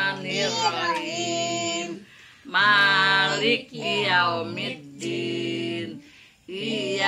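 Voices singing a birthday song in short sung phrases with brief pauses between them.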